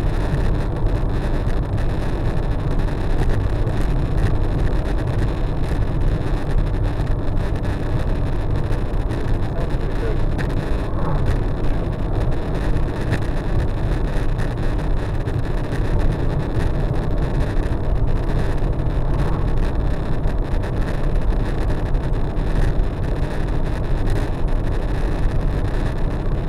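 Steady road and driving noise inside a car cruising on a highway, heard through a dashcam with a lot of vibration noise: mostly an even low rumble.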